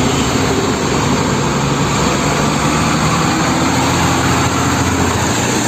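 Heavy Sinotruk HOWO concrete mixer truck's diesel engine running steadily, with a constant hiss of road traffic around it.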